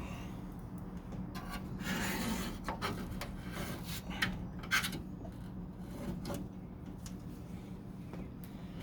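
A hand scraper scraping old, stringy factory sealant off a car door panel in irregular strokes. A steady low hum runs underneath.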